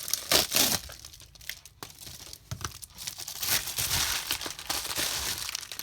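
Packaging being torn and crinkled open by hand: a loud rip about half a second in, then a few seconds of crinkling and rustling with small clicks.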